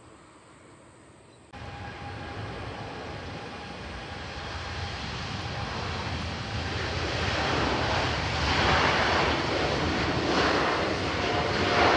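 UPS Boeing 747-8F cargo jet's four GEnx turbofans at takeoff power on the departure roll: a jet roar with a steady whine in it that cuts in about a second and a half in and grows steadily louder as the aircraft passes.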